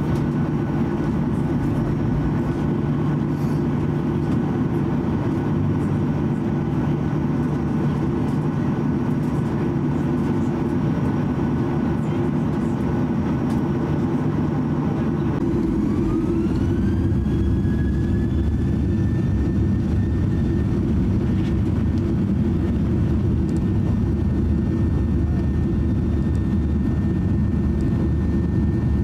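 Cabin sound of a Boeing 737-800's CFM56-7B jet engines: a steady hum and rumble, then about halfway through a rising whine as the engines spool up for the takeoff run. The whine levels off into a steady high tone over a deeper, stronger rumble.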